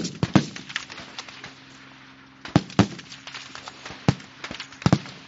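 Rifle shots from the firing line: sharp cracks at irregular intervals, the loudest right at the start, with about half a dozen more over the next five seconds.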